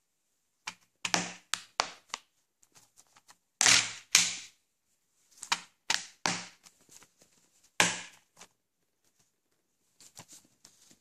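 Plastic Blu-ray keep case being closed and handled: a run of sharp plastic clicks and knocks, the loudest about four seconds and about eight seconds in.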